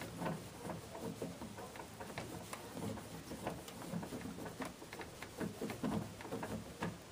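Cloth rag rubbing over a plastic headlight lens and being handled, a run of short, irregular scrubbing and rustling strokes that stops near the end. The lens is being wiped down after wet sanding.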